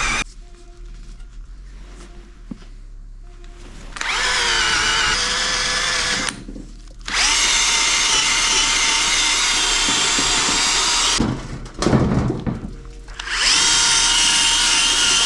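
Handheld electric drill with a polishing attachment running in three bursts of a few seconds each, each spinning up to a steady whine and then stopping, as a part is polished.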